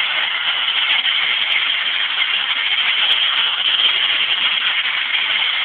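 Corn cob media blasting of log siding: compressed air driving ground corn cob through a hand-held nozzle against the logs, a loud, steady hiss.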